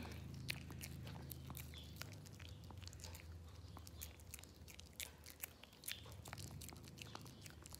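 Small dog licking and chewing a peeled banana: faint, irregular wet smacking and clicking mouth sounds, over a faint steady low hum.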